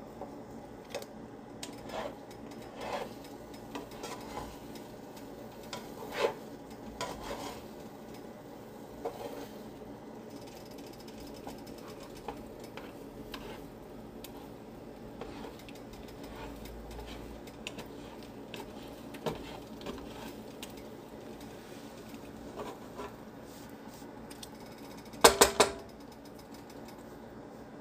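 Slotted spatula scraping and tapping scrambled eggs around a nonstick frying pan, scattered light clicks over a steady hum. A loud clatter of several quick knocks comes near the end.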